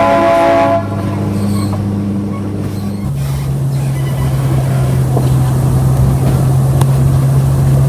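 Narrow-gauge train's whistle sounding a chord of several tones that cuts off about a second in, followed by the steady low drone of the train running, which steps up slightly in pitch about three seconds in.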